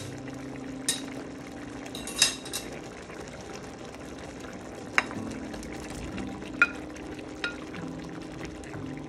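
A black spatula stirring a pan of pork stewing in thick tomato sauce, with a soft wet churning and a handful of sharp clicks where it knocks against the pan, the loudest about two seconds in.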